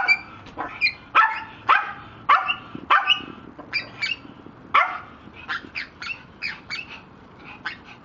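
A dog barking repeatedly in short barks, about two a second, louder at first and fainter in the second half.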